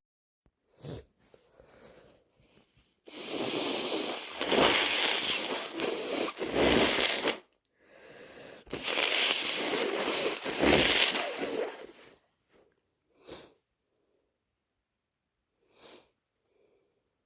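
A person with a heavy cold blowing their nose hard twice, each long noisy blow lasting about four seconds, followed by a few short sniffs.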